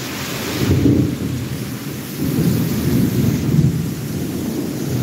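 Thunder rumbling and rolling over a steady hiss of rain, the rumble swelling about a second in and again through the middle.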